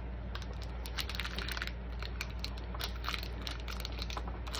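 Block of cheddar cheese scraped down a stainless steel box grater in uneven short strokes, a few each second.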